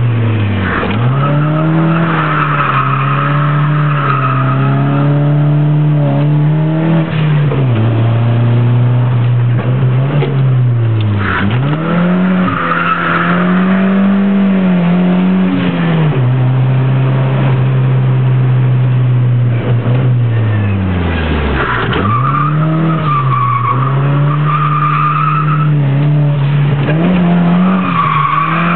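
Nissan 200SX S13 engine revving hard on a circuit, heard from inside the cabin. Its pitch climbs and falls with throttle and gear changes, and it drops away sharply once, about two-thirds of the way in. The tyres squeal through four slides while the car drifts.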